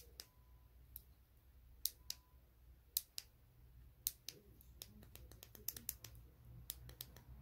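Faint, sharp clicks of a ring light's inline remote buttons being pressed one at a time to step the brightness, a few spaced presses at first and then a quicker run of them near the end.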